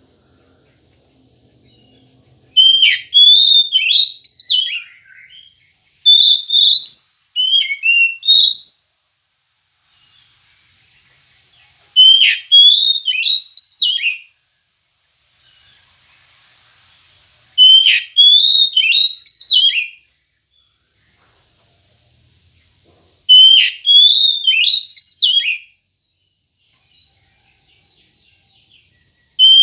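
Oriental magpie-robin (kacer) singing: loud phrases of sharp whistled notes with quick rising and falling slurs, each phrase two to three seconds long, repeated with pauses of a few seconds between.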